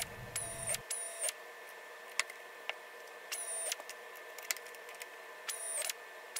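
Clecos being worked in the drilled holes of an aluminium spar with cleco pliers: short squeaky clicks in small groups of two or three, about half a second apart.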